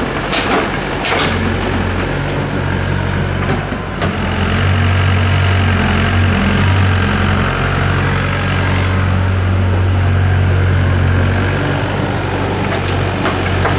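Doosan DX55W wheeled excavator's diesel engine running steadily, working harder from about four seconds in until near the end as it digs and swings a load of soil. Two short knocks near the start as soil drops from the bucket into the dump truck's steel bed.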